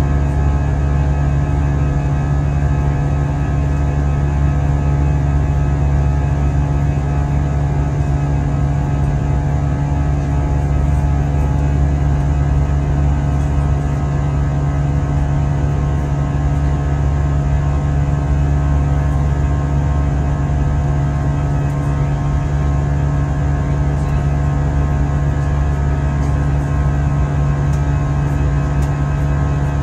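Steady cabin noise inside an Airbus A320 flying through cloud: the jet engines and airflow make a loud, unbroken low hum with a few steady tones above it.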